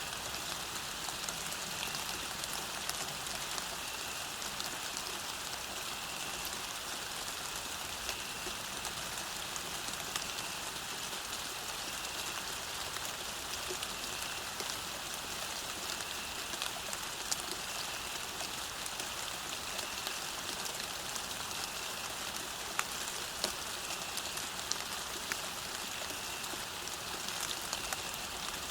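Steady rain falling on a road, a constant hiss flecked with scattered louder drop ticks.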